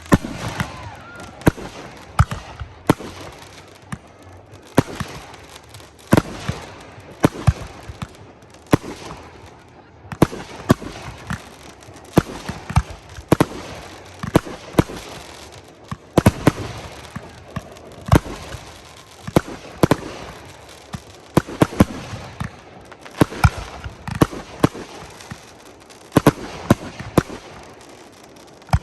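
Fireworks going off in a continuous run of sharp bangs, about one or two a second, with crackling between them.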